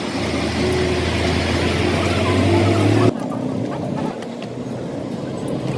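An engine or motor running with a steady hum that rises slightly in pitch, cut off abruptly about three seconds in. After that only quieter background noise and a few faint clicks remain.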